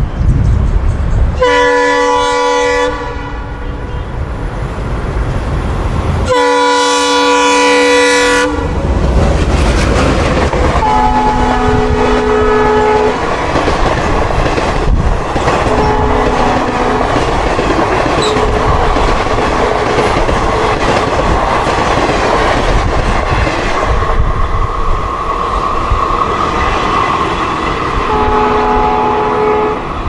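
ALCo WDG3A diesel locomotive sounding its multi-tone horn in two long blasts as it approaches at speed over a deep engine rumble. The coaches then run past with wheels clattering over the rail joints, while shorter horn blasts, lower in pitch once the locomotive has passed, sound several more times as the train recedes.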